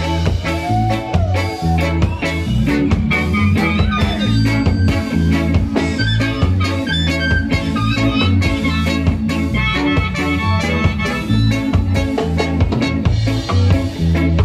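Live ska band playing: drum kit and bass keeping a steady, repeating groove under electric guitar and keyboard lines.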